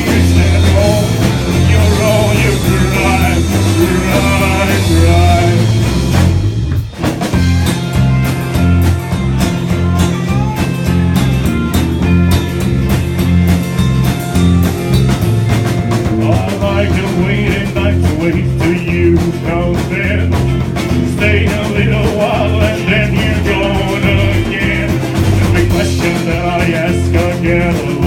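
Live country and rockabilly band playing an instrumental passage with drum kit, bass and guitar. The music drops out for a moment about seven seconds in, then the band carries on.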